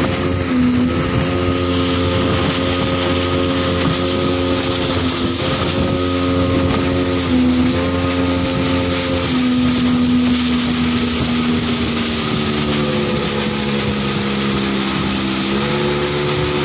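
Outboard motor driving a small open fibreglass boat under way, running steadily with its engine note shifting slightly up and down a few times, over a steady rush of water and wind past the hull.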